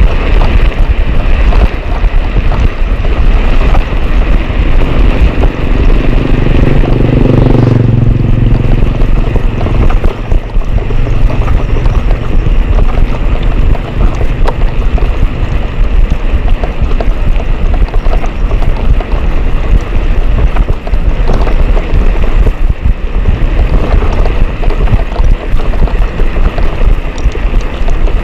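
Loud wind buffeting a camera microphone while riding a bicycle, with a louder low rumble about six to eight seconds in.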